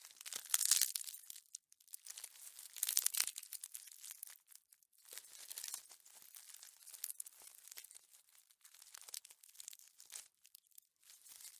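Rose chafer beetle sound: dry crackling and crunching made of rapid irregular clicks, swelling in several bursts, the strongest near the start and about three seconds in.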